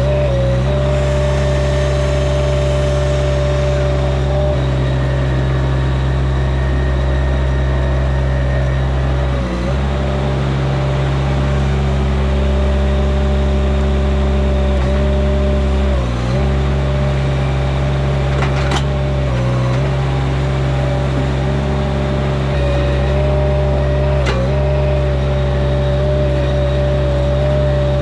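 A machine's engine running steadily at high revs, its pitch dipping briefly every few seconds as it takes load.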